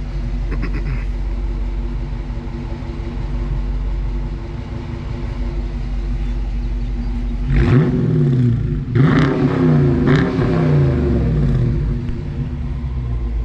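A Dodge R/T's 5.7-litre Hemi V8 idling steadily, then revved in several quick blips from a little past halfway, each pitch rising and falling back to idle.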